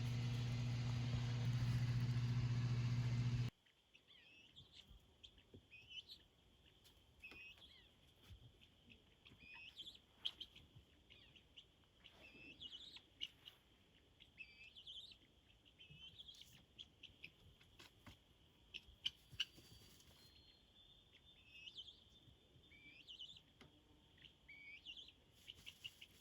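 Birds chirping outdoors: many short, sweeping chirps repeated every second or so, quiet but clear. A steady low hum fills the first few seconds and cuts off suddenly before the chirping starts.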